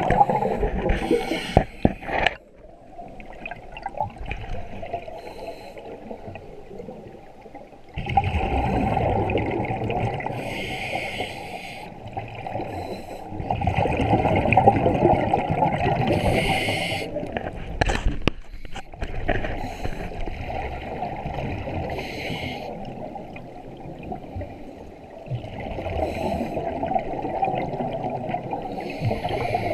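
Scuba divers' regulator breathing heard underwater: exhaled air bubbling and gurgling in long rushes that come back every five or six seconds, with quieter hissing between.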